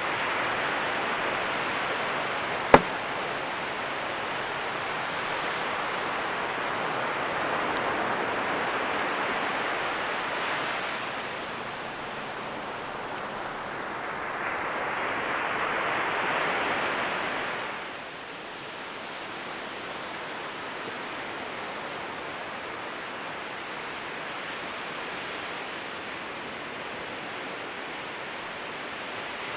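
Ocean surf washing on a sandy beach: a steady hiss that swells twice and then settles lower. One sharp click sounds a few seconds in.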